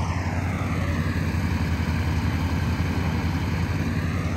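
Golf cart driving, its motor running steadily with a low rumble and a faint whine that dips in pitch and climbs again.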